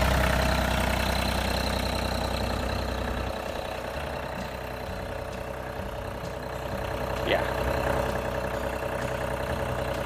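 Riding lawn tractor's engine running steadily at idle, just after starting; it gets a little quieter about three seconds in.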